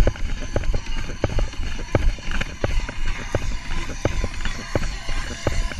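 A runner's footfalls on grass at a fast, even pace, about three strides a second, each one a short thud, over a low rumble from the jostled camera.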